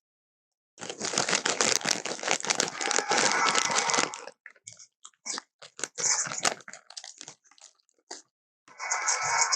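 Dense crunching and crinkling for about three seconds, then scattered shorter crunches, like something being chewed or crumpled. A steady musical sound comes in near the end.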